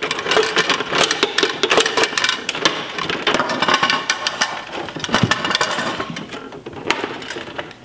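Hard plastic clicking and rattling from a Bruder toy recycling truck's rear bin lifter and toy trash bin being worked by hand, a rapid run of clicks with a few sharper knocks.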